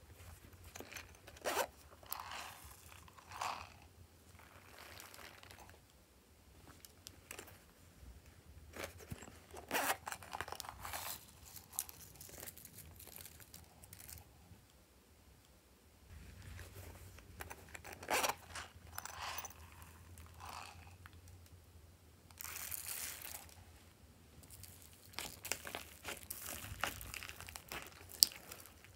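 Hands squishing and mixing slime, foam clay and foam in a glass bowl: irregular soft crackling and crinkling squelches, with one sharp click near the end.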